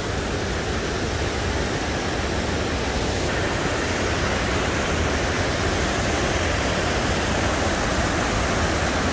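Waterfall rushing, a steady even wash of noise that gets slightly brighter about three seconds in.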